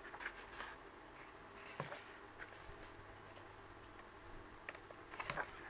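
Faint rustling and a few soft ticks of glossy photobook pages being handled and turned by hand, the clearest near the end.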